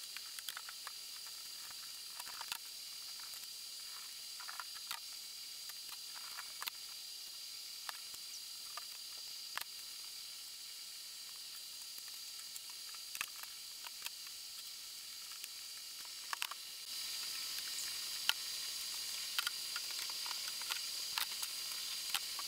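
Scattered light clicks and taps of small metal and plastic parts (screws, springs, gears and a metal end plate) being handled as a copier drum unit is taken apart, over a steady hiss that gets a little louder about three-quarters of the way through.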